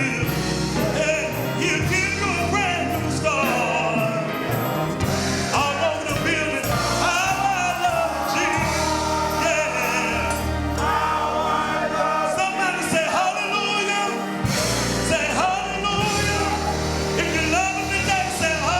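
Gospel song with singers over a band, steady and loud.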